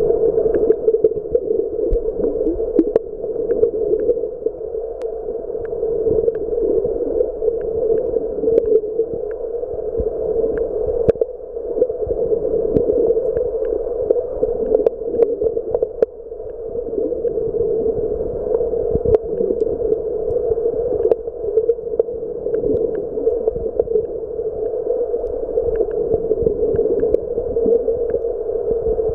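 Muffled underwater sound picked up by a camera in a waterproof housing while snorkelling: a steady dull hum with scattered clicks and light knocks.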